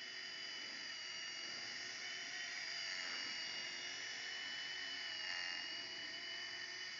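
Mini electric RC helicopter in flight: its motor and rotor make a steady high-pitched whine whose pitch wavers slightly, growing a little louder in the middle.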